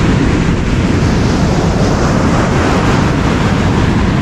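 Rough surf breaking on a beach, with wind buffeting the microphone: a steady, loud, unbroken rush, heaviest in the low end.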